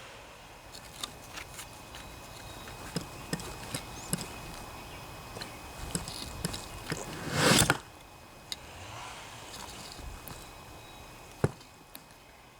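Handling noises: scattered light clicks and knocks, a louder rustling scrape lasting about half a second around seven and a half seconds in, and one sharp knock near the end.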